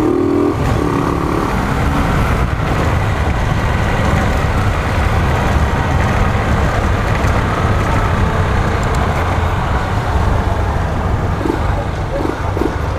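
Honda CG 125 motorcycle's single-cylinder four-stroke engine running steadily under way, heavily mixed with wind rushing over the microphone.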